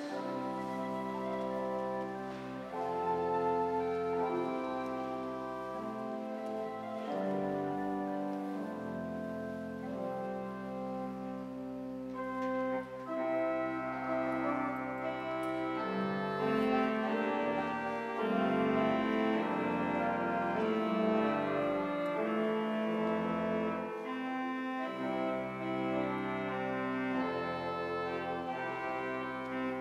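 Church pipe organ playing slow, sustained chords that change every second or two, growing fuller and brighter about halfway through.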